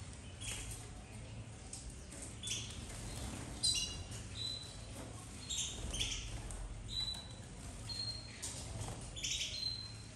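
Domestic canaries in an aviary giving scattered short, high chirps, mixed with brief flurries of wing fluttering as birds flit between perches.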